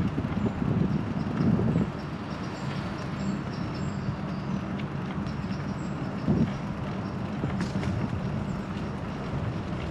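Ride noise while cycling on city streets. For about the first two seconds wind buffets the microphone in uneven low gusts. After that a steady rumble of road traffic with a constant low hum carries on, and one sharp click comes about three-quarters of the way through.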